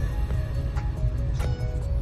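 Background music with sustained notes and sharp percussion hits, over a steady low rumble.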